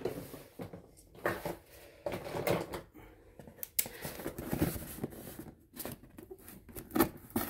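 A pen tip scraping at and slitting the tape on a box, with the box handled and shifted: a run of irregular scrapes, rustles and light knocks.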